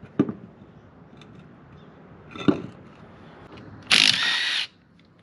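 Cordless impact wrench running briefly on a wheel's lug nut, a loud burst of under a second about four seconds in. A couple of duller knocks from handling the wheel come before it.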